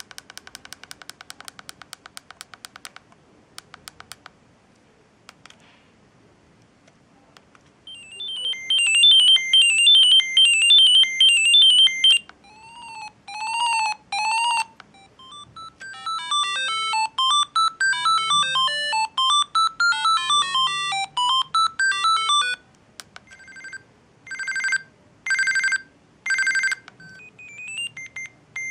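Siemens A31 mobile phone playing a string of short ringtone previews through its small speaker: beeping electronic melodies, three rising-and-falling chirps, and a buzzing alarm-like tone sounded three times, each cut off as the next begins. A quick run of clicks in the first few seconds.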